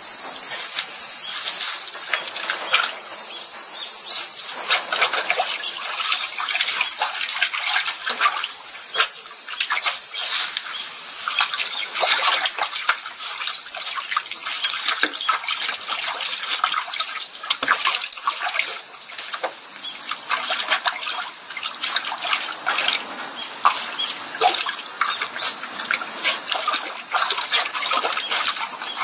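Water splashing and trickling in irregular bursts as hands scoop and pour it over a wet tanuki in a plastic tub. A steady high chirring of insects runs underneath.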